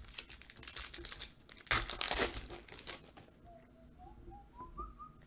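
Rustling and crinkling of trading cards being shuffled through by hand, loudest about two seconds in, then quieter.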